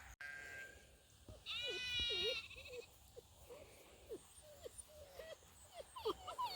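A sheep bleats once, a high call lasting about a second, a second and a half in, among short faint squeaky calls scattered through the rest.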